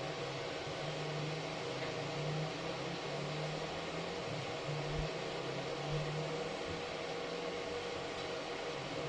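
Stick (SMAW) arc welding with an E6013 electrode: a steady arc hiss over a constant low hum.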